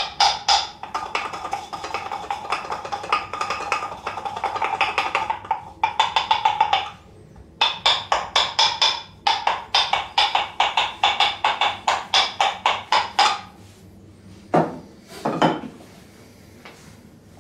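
Percussive hand massage: quick runs of hollow, ringing slaps on the body in bursts of several seconds with short pauses between them. The slapping stops about 13 seconds in, followed by two duller thumps.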